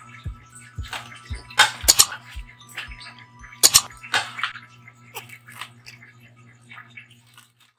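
Background music with a steady beat, about two thumps a second. Over it come a few sharp clinks and knocks of tableware, loudest about two seconds in and again near four seconds, as the roasted pig's head is handled on its plate. The sound fades out near the end.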